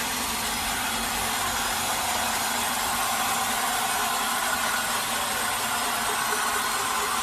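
Bandsaw sawmill running steadily, a continuous even mechanical noise with no change in level.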